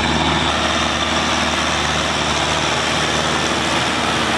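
Kubota tractor's diesel engine running steadily under load as it drags a rotary tiller through flooded paddy mud.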